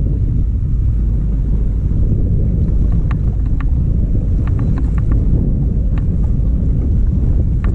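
Wind buffeting the microphone in a steady low rumble, with scattered light clicks from about three seconds in.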